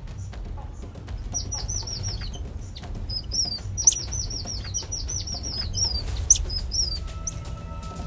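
High-pitched animal chirps in quick runs, each note a short downward hook, starting about a second and a half in and stopping near the end, with two sharp clicks among them. Soft background music runs underneath.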